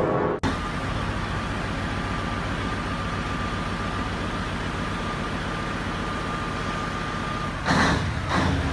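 An engine running steadily with a faint, steady high whine over it, then two short, loud bursts of noise near the end.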